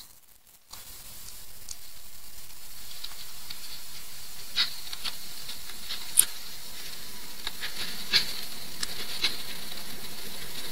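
Steady faint hiss with light clicks every second or two, from handwriting being put down on a digital whiteboard. The hiss fades in after a moment of near silence at the start.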